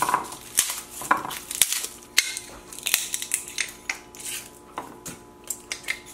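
Garlic cloves being broken off the head and crushed in a hand-held metal lime squeezer on a wooden cutting board: irregular sharp cracks, clicks and knocks of the metal press and splitting cloves.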